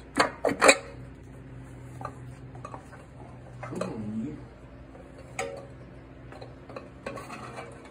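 Steel transmission internals clinking against each other and the aluminium case as the 700R4's low drum is worked up and out by hand. A quick run of sharp metallic clinks comes in the first second, then scattered lighter clicks and taps.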